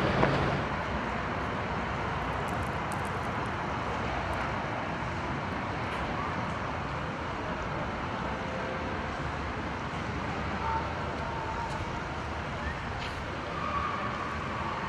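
Steady wash of distant city traffic, with a few faint, brief higher tones late on.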